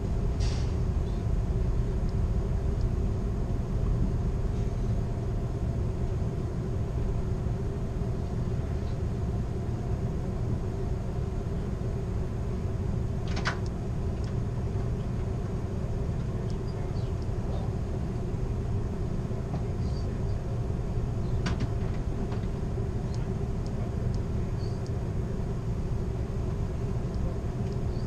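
Steady low rumble of a moving passenger train heard from inside its rear car, with three short sharp clicks spread through it.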